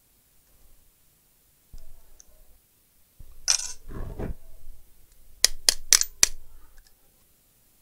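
Metal hand tools handled at a workbench: a soft knock and a scraping rustle, then four sharp metallic clicks in about a second as yellow-handled cutters work at a stuck nozzle on a hot air rework gun.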